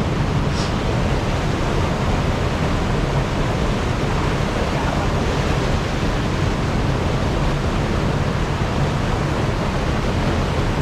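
Water rushing steadily over an overflow weir, an even, unbroken noise.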